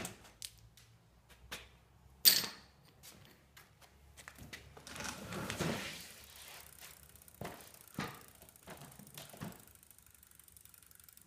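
Scattered knocks and clicks with shuffling footsteps on a concrete floor; the loudest is a single sharp knock about two seconds in.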